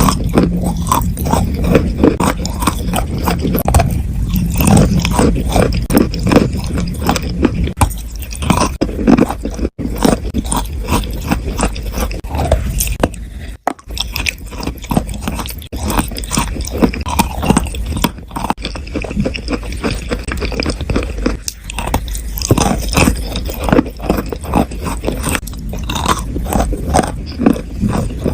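Chalk and clay crunching close to the microphone: a dense, continuous run of crisp cracks and crunches, with two brief breaks about ten and fourteen seconds in.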